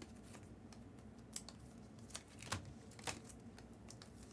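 Faint, scattered light clicks, about five of them a fraction of a second to a second apart, over quiet room hiss.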